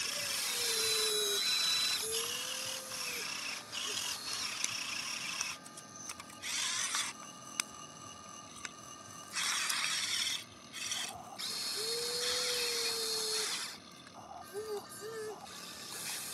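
Small electric motors of a toy radio-controlled excavator whirring in stop-start bursts of a second or two as the arm and bucket move, some bursts carrying a thin high whine.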